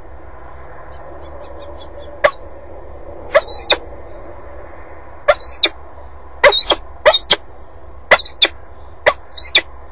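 Peregrine falcon calling: about ten short, harsh calls, some single and some in quick pairs, starting about two seconds in, over a steady low background noise.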